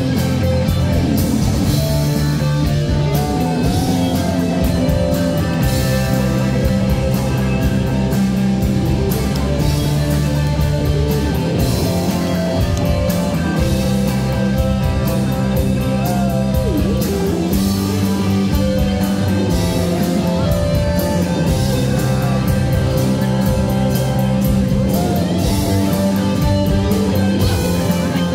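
Live rock band playing loudly and steadily: drum kit, electric bass and guitar, with two saxophones playing the tune.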